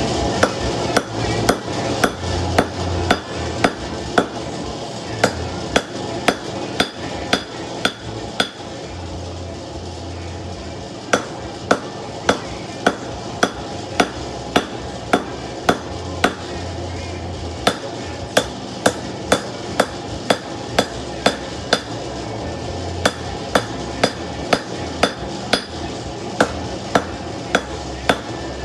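Hand hammer striking hot steel on a post anvil, forging a knife blade. Sharp blows come at about two a second, in runs broken by a few short pauses.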